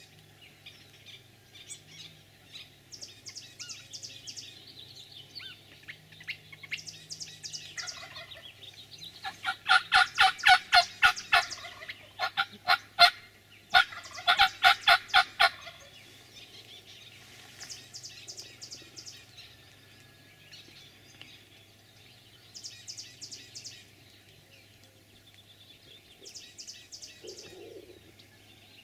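Wild turkey gobbler gobbling at close range: a loud run of rapid rattling gobbles starting about nine seconds in and lasting some six seconds, broken into three runs.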